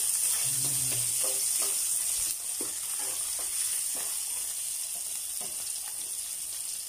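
Onion, tomato and garlic sizzling in hot oil in a nonstick wok, with a spatula stirring and scraping them in a run of short strokes. The sizzle drops slightly about two seconds in.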